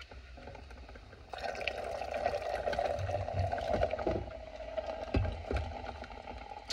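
Cola poured from a can into a stainless Stanley tumbler, a fizzing hiss of carbonated soda that starts about a second in and eases off near the end, with a few low bumps from the can and tumbler being handled.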